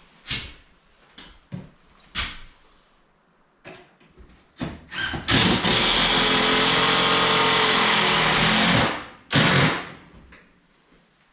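A handheld electric power tool's motor runs at a steady speed for about three and a half seconds, then winds down, between several sharp knocks of things being moved and set down.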